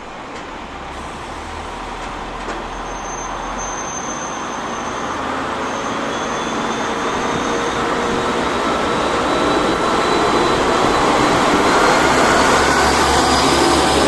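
KiHa 40 diesel railcar pulling away, its diesel engine working under load and the running noise growing steadily louder as it gets under way, with a faint high whine over it.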